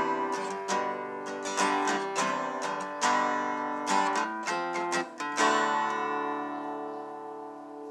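Background music: strummed acoustic guitar chords, ending on a last chord that rings out and slowly fades.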